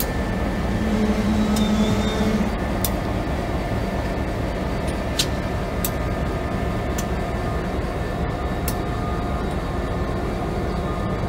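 EMD GP50 diesel-electric locomotive's 16-cylinder two-stroke engine running steadily as it rolls slowly past, with a few scattered sharp clicks.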